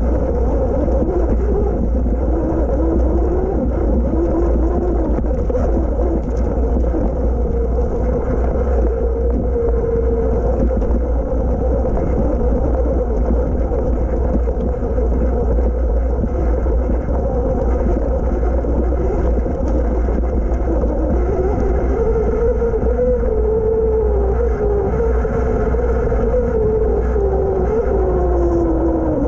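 Sur Ron X electric dirt bike riding on trail: the motor and chain drive whine, rising and falling in pitch with speed, over a heavy steady rumble of wind on the microphone.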